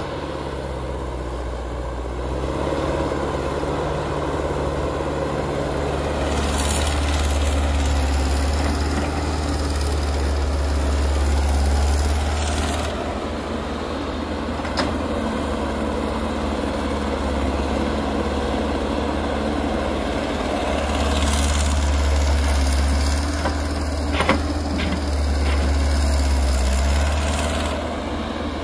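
CAT crawler excavator's diesel engine running, working harder for two long stretches as it digs and swings loads of dirt into a dump truck, with a few sharp knocks.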